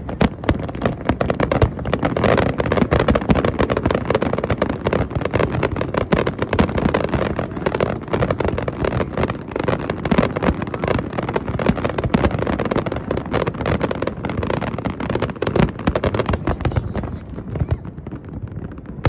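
Fireworks display in full swing: a dense, continuous barrage of bangs and crackling from many shells bursting overhead.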